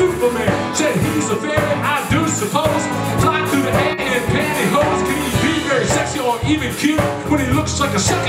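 Live dance band playing an upbeat rock-and-roll number with electric guitars, drum kit and keyboard, with a singer over a steady beat.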